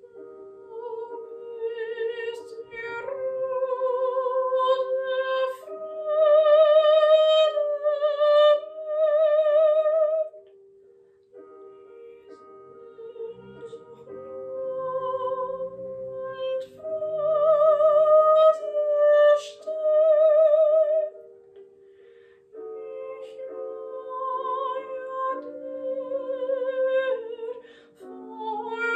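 A woman singing in operatic style with wide vibrato on long held notes, over sustained piano accompaniment. The voice sings three phrases, with short breaks about 11 and 22 seconds in.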